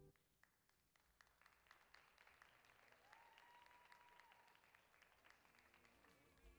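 Faint audience applause, many scattered claps, starting about a second after the dance music stops. A short steady tone sounds briefly a little past halfway.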